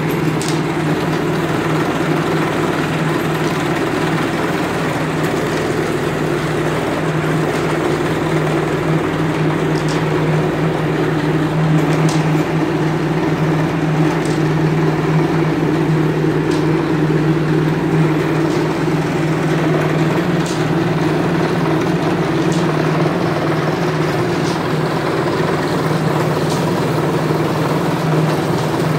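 Rattan sizing machine running with a steady hum and a continuous rolling noise as its rollers draw a rattan pole through, with a few faint ticks now and then.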